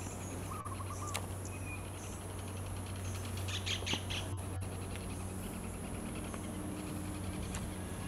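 A kingfisher calling: a short call just under a second in, then a quick run of repeated high notes about three and a half seconds in, over a steady high insect hiss and a low hum.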